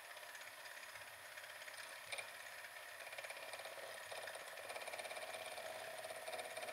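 Milling machine running faintly with a fine, fast rattle while a gear cutter takes a full-depth cut in a cast iron gear blank. There is a single click about two seconds in.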